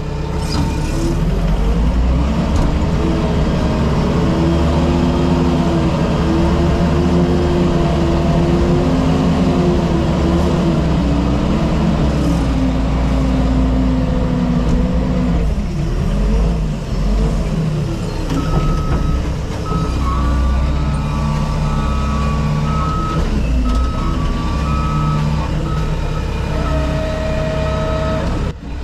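SkyTrak telehandler's diesel engine running under load as the machine drives over rough ground, its engine speed rising and falling. Past the middle, its reversing alarm beeps steadily for several seconds.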